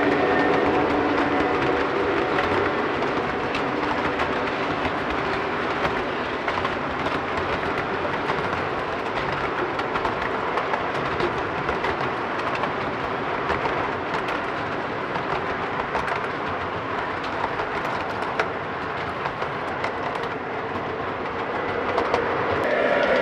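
O gauge model auto rack cars rolling past on the track: a steady rolling rumble with scattered clicks from the wheels crossing rail joints.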